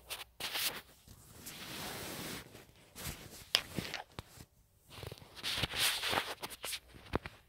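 Rustling of bedsheets and handling noise close to the phone's microphone, with scattered clicks; two longer rustles, one about a second in and another about five seconds in.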